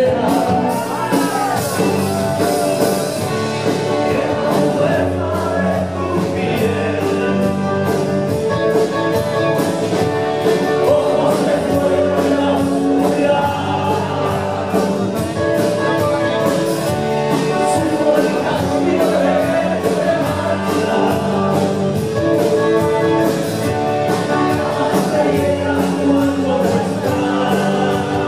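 Live rock band playing a song, with a male lead vocal over guitars and a steady drum beat.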